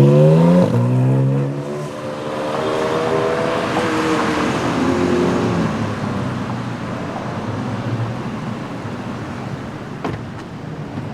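Sports car engine revving hard as the car accelerates away, its pitch climbing, dropping and climbing again as it shifts up. It then fades into background traffic noise.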